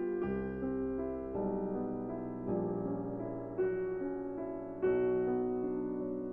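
Slow piano music: a melody of single held notes over low sustained bass notes.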